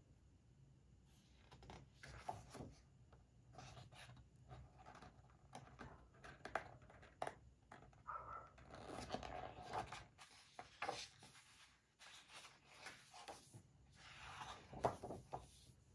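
Faint rustling and soft flaps of paper as the pages of a large photobook are turned and smoothed down by hand, with a louder rustle near the end.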